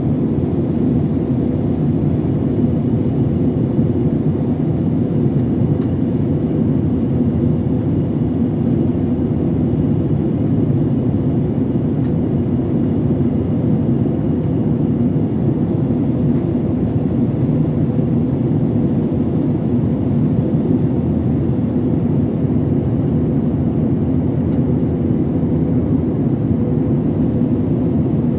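Steady drone of a jet airliner's cabin in cruise: engine and airflow noise heard from inside, an even low rumble with a faint steady hum, unchanging throughout.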